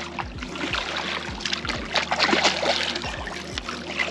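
Longtail tuna thrashing and splashing at the surface beside the boat as it is drawn in on the leader, with a steady low hum and irregular low thumps underneath.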